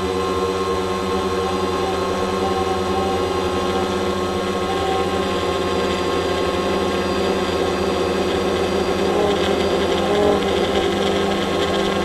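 Drone's motors and propellers running steadily in flight, heard from its own onboard microphone as a hum of several steady tones that waver slightly in pitch.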